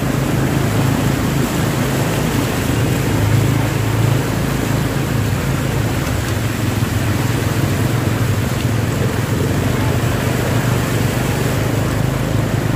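A vehicle engine running at a steady low hum under a constant rush of road and water noise, as traffic moves through a flooded street.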